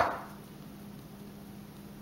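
A single sharp knock on a wooden cutting board as bread dough is shaped by hand. It fades within a fraction of a second, over a low steady hum.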